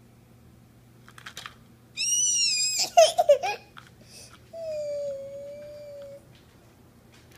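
A toddler vocalizing while playing: a high-pitched wavering squeal about two seconds in, a burst of choppy voice sounds, then a long steady hummed tone, with a few faint clicks of a plastic toy being handled before the squeal.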